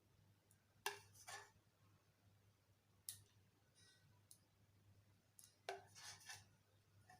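Sparse light clicks and taps of a kitchen utensil against cookware as hot candy syrup is put out onto a baking sheet little by little: a quick cluster about a second in, a couple of single ticks, and another cluster near the end.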